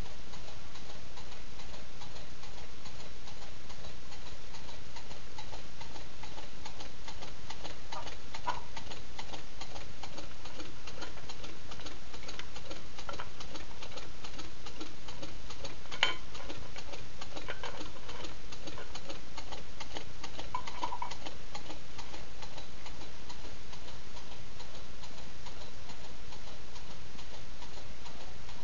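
Home-made beer-can low-temperature-differential Stirling engine running steadily with a fast, even ticking, and one sharper click just past halfway.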